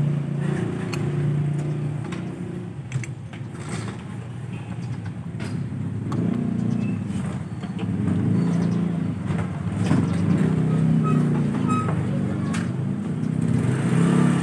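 A motor vehicle engine running steadily, fading somewhat and then picking up again about six seconds in, with scattered light clicks and taps of a plastic scooter hugger and its bolts being handled and fitted.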